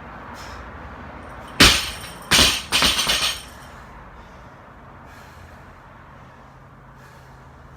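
A loaded barbell dropped to the floor: a loud crash with a clanging ring-off about one and a half seconds in, then a second hit and a short rattle of plates settling.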